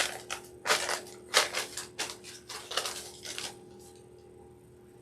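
A run of short, irregular scraping and knocking sounds of things being handled on a worktable, stopping about three and a half seconds in.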